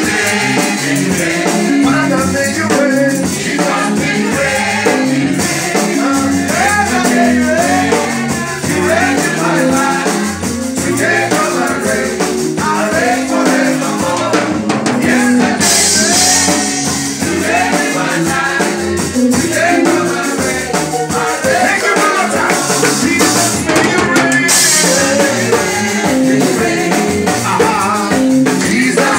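Church worship song: voices singing over a live band with drums and a steady bass line.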